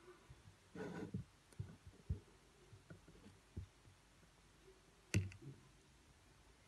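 Scattered clicks and knocks of feeding tongs handling a plastic enclosure, with a cluster of rustling knocks about a second in and one sharp, loud click about five seconds in.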